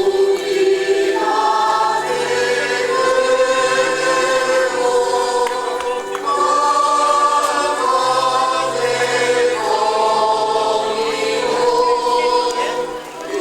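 A choir singing slow, long-held chords with several voices together, changing notes every second or two.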